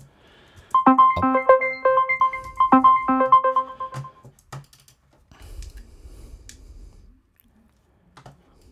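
Software synthesizer arpeggio in Logic Pro X sounding from the piano-roll edit: a quick run of short, keyboard-like notes stacked in octaves for about three seconds, then stopping. Afterwards there are a few faint clicks.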